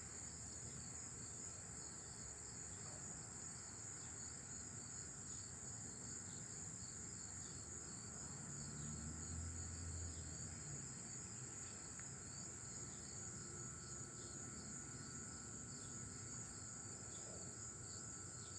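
A chorus of insects: a steady high-pitched trill with a second, pulsing chirp just below it. A faint low rumble swells briefly around nine seconds in.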